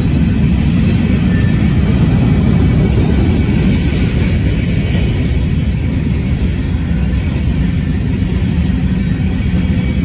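Freight train of covered hopper cars rolling past close by: a steady, loud rumble of steel wheels on the rails.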